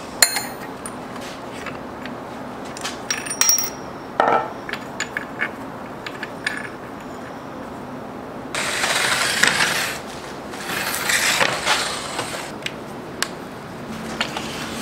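Steel parts of a rusted Atlas lathe being handled on its bed: scattered clinks and taps of metal on metal, then two longer stretches of rough scraping about halfway through, as a metal piece is slid along the rusty ways.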